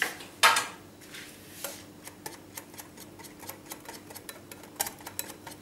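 Wire balloon whisk clicking against a glass bowl as thick dhokla batter is beaten: a run of quick light ticks from about two seconds in, after one louder knock about half a second in.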